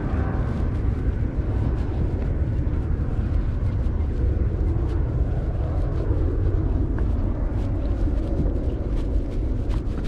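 Wind buffeting the microphone outdoors: a steady low rumbling noise.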